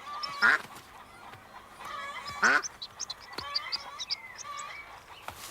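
Farmyard ducks quacking and honking, with two loud calls about half a second and two and a half seconds in, the second falling in pitch. Small birds chirp in quick high notes in the background.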